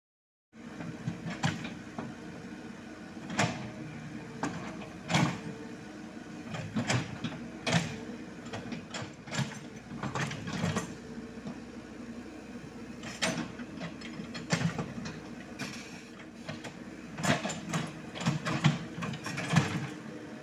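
Komatsu PC78US mini excavator working: its diesel engine runs steadily while the bucket scrapes a dirt bank, with repeated sharp knocks and clanks at irregular intervals. The sound starts about half a second in.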